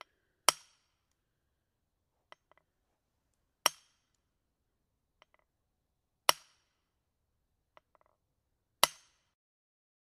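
Hammer striking an iron wedge to drive it in: four loud, ringing metallic blows spaced about two and a half to three seconds apart, each preceded by a light tap or two.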